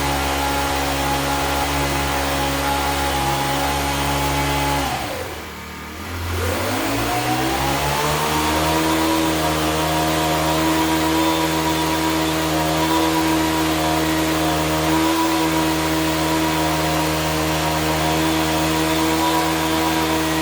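An electric motor running with a steady whine slows almost to a stop about five seconds in. It then winds back up over about three seconds and holds a steady, slightly higher pitch.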